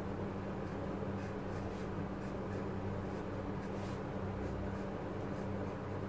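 Wooden pencil scratching on drawing paper in short, separate strokes, over a steady low hum.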